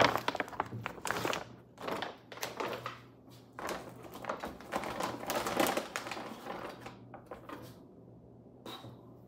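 Plastic pouches rustling and crinkling, with scattered light knocks and shuffles as bags are handled and set on pantry shelves, over a faint steady low hum; the handling dies down near the end.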